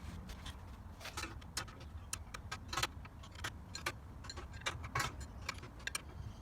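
Scattered light clicks and taps, irregularly spaced, from metal parts and hand tools being handled while assembling the cylinder mower, over a steady low hum.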